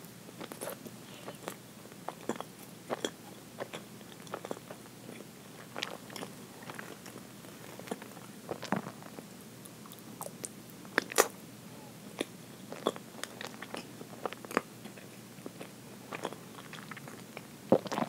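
Close-miked chewing of soft chocolate roll cake with cream filling: wet mouth smacks and irregular soft clicks as forkfuls are bitten and chewed, with a sharper click near the end.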